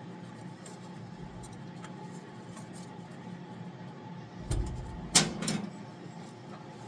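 A few knocks and a short clatter of parts or tools being handled, about four and a half and five seconds in, the second knock the loudest, over a steady low hum.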